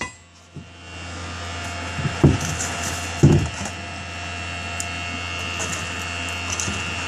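A steady whirring rush of air with a thin high whine builds up about a second in and keeps going: the air supply of a homemade coal forge heating a horseshoe. Two dull knocks come a second apart about two and three seconds in.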